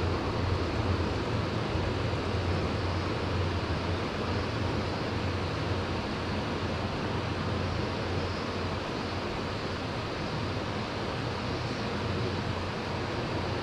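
Steam-hauled passenger train rolling past: a steady rumble of wheels and running gear on the rails, with a low hum underneath.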